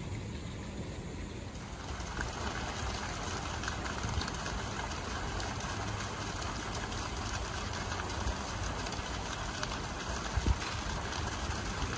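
Garden fountain jets splashing steadily into a long reflecting pool, the water noise swelling about two seconds in, over a low rumble. A brief thump near the end.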